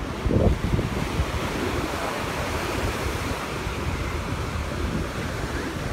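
Ocean surf breaking on a sandy beach, with wind buffeting the microphone in gusts, strongest about half a second in.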